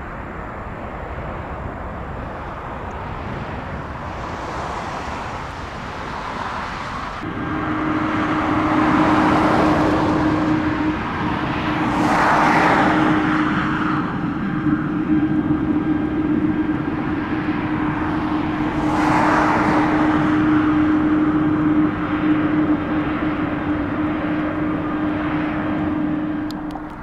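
Jet airliner engines running, with a steady hum that comes in about seven seconds in and holds, and three swelling whooshes over the top.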